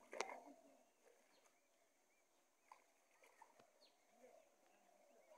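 Near silence: faint outdoor ambience with one short, sharp knock just after the start, then scattered faint chirps and ticks.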